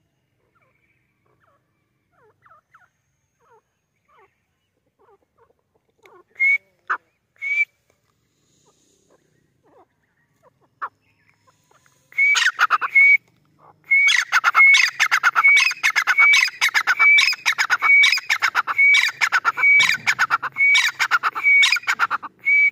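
Grey francolin calling: a few scattered notes at first, then from about halfway through a loud, fast run of sharp, repeated whistled notes, about two a second.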